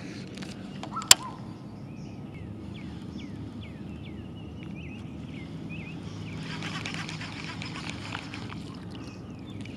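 Casting a jig on a baitcasting rod: one sharp click from the reel about a second in, then a small bird chirping in short repeated notes over a steady low hum.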